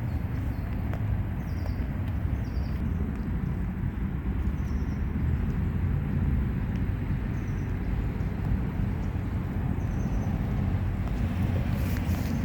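Outdoor ambience: a steady low rumble, with faint short high chirps every second or two.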